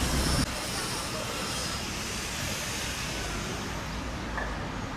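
Urban traffic noise, a steady wash of passing vehicles. A louder low engine rumble cuts off abruptly about half a second in, leaving the quieter, even traffic noise.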